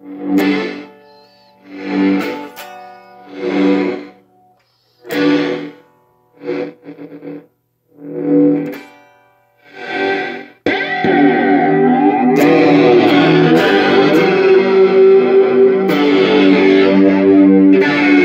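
Electric guitar chords played through a circuit-bent Joyo Classic Flanger pedal, each chord ringing out and fading about every one and a half seconds, with a few quick stabs near the middle. About ten and a half seconds in, the pedal's controls are changed and the sound jumps to a loud continuous swirling wash whose flanging sweeps glide up and down.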